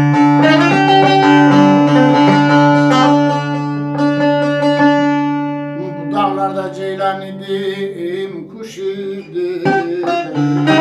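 Bağlama (long-necked Turkish saz) played solo, rapid plucked melody notes over a steady ringing drone from the open strings. About six seconds in the playing turns quieter and the drone drops out, returning near the end.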